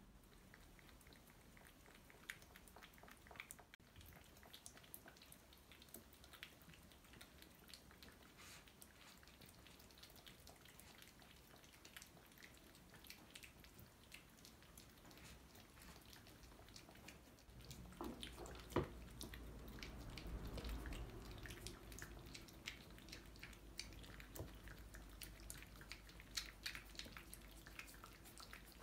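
Cats licking and chewing a soft wet snack from plates: faint, quick wet clicks and smacks, with one louder knock about two-thirds of the way through.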